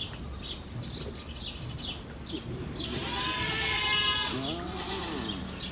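Lion cub calling twice: a long wavering cry about three seconds in, then a shorter cry that rises and falls in pitch.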